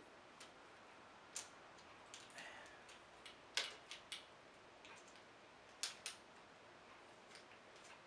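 Irregular light clicks and taps as the handle and flex of a 1959 Hoover Senior 638 upright vacuum cleaner are handled, with a few sharper clicks among fainter ones.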